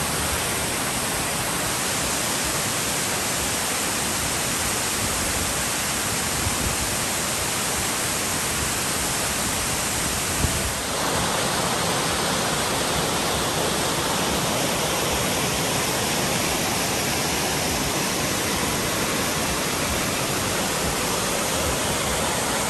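Amicalola Falls, a tall waterfall, pouring down its rock face and cascading over boulders: a loud, steady rush of falling water. Its character shifts a little about eleven seconds in.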